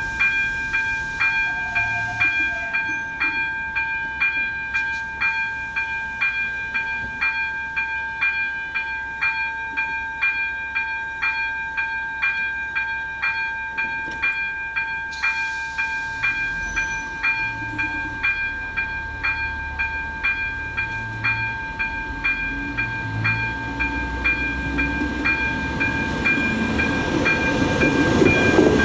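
AŽD electronic crossing bell (ZV-02) ringing in rapid, evenly spaced chime strokes as the level-crossing warning runs. Over the last several seconds a ČD Class 814 RegioNova diesel railcar's engine and wheels grow louder as it runs up to the crossing.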